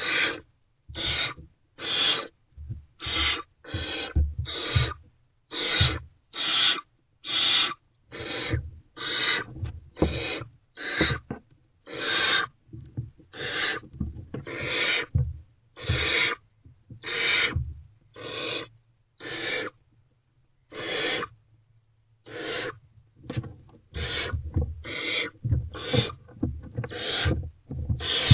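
Barn owl owlets' food-begging calls: short rasping, hissing screeches repeated about once a second.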